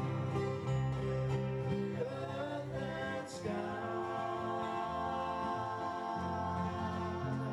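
Live acoustic guitar accompanying a small group of voices singing together, with long held notes in the second half.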